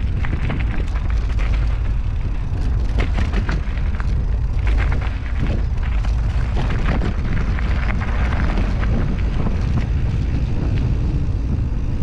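Wind rumbling over the microphone of a mountain bike rider riding down singletrack, with irregular rattles and clicks from the bike over rough ground.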